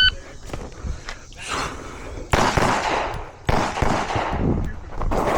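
A shot timer's start beep, then a string of pistol shots fired at a rapid, uneven pace as the shooter engages targets.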